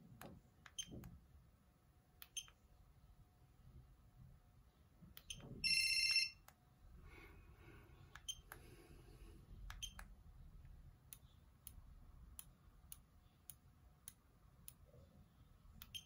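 Sony CMD-Z5 mobile phone (2000): scattered soft clicks of its keys, some with a faint beep, and a short bright electronic ringtone note about six seconds in, half a second long, the loudest sound.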